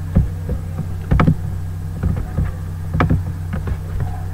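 A steady low hum, with a few sharp clicks or knocks about a second in and again about three seconds in.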